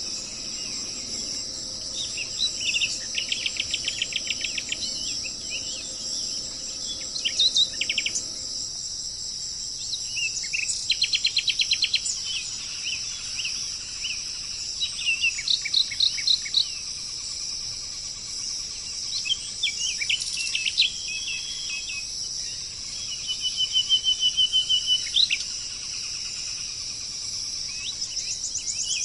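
Songbirds singing in several bouts of fast, evenly repeated notes, each about a second or two long, with scattered chirps between, over a steady high-pitched insect drone.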